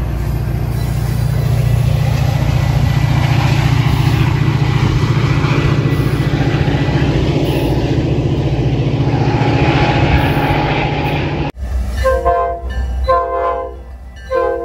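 Metra commuter train passing close by, a steady heavy rumble that cuts off abruptly about three quarters of the way through. A train horn then sounds in several short blasts.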